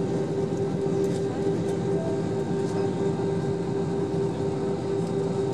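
Cabin noise of an Airbus A321 in flight, heard inside the cabin at a window seat over the wing: a steady roar of engines and rushing air with a constant droning hum.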